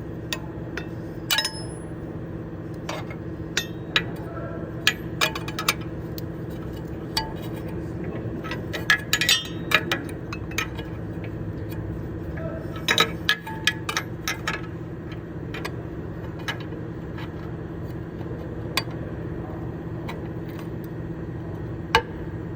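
Metal hand tools clinking, tapping and scraping in irregular bunches during an oxygen-sensor job, over a steady low hum.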